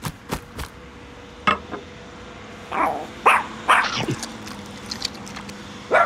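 A small dog's short whining and yipping calls, several in quick succession about halfway through and one more near the end, after a few light clicks.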